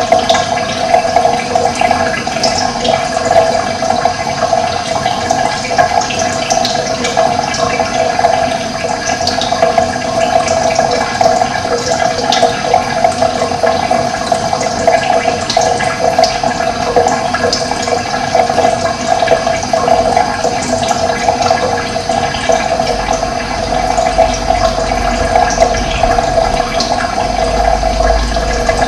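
Steady rushing of running water, with a low rumble coming in near the end.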